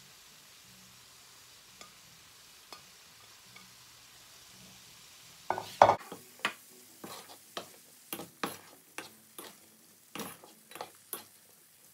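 Bell pepper strips and minced tofu sizzling faintly in a stainless steel frying pan; about halfway through, a spatula starts stirring, scraping and knocking against the pan several times a second, loudest at the first strokes.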